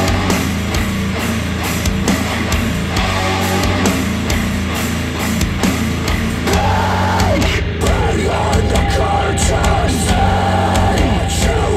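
Death metal played back through hi-fi bookshelf speakers: heavy distorted guitars and drums, with harsh vocals coming in about halfway.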